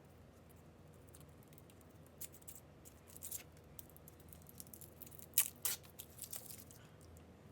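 Scattered light clicks and scratchy rustles of small handling work, busier in the second half, with two sharper clicks about five and a half seconds in.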